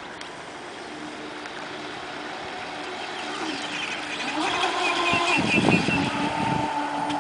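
Aquacraft SV27 RC speedboat running on 5-cell LiPo power: its brushless motor whines at a steady pitch over the hiss of spray from the hull. The sound grows louder from about halfway as the boat comes closer. Birds chirp faintly in the background.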